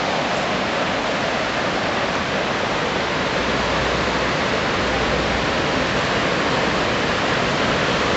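Ocean surf breaking along the beach: a steady, loud rushing hiss of waves with no clear separate breaks.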